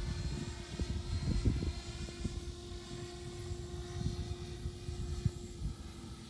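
Freewing F-18's twin 90mm electric ducted fans heard in flight at a distance, a steady whine, with wind gusting on the microphone.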